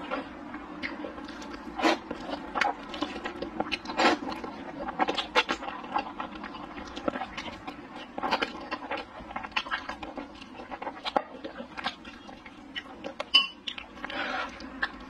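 A person eating sweet potato glass noodles close to the microphone: wet chewing and slurping, with many short smacks and clicks.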